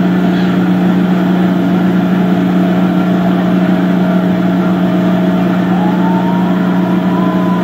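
Blower of a tornado wind-booth machine running at full blast: a steady, loud hum over the noise of rushing air.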